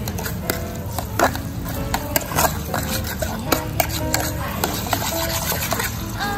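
A utensil stirring and scraping braised beef in an aluminium mess tin, with many short clinks and scrapes against the tin.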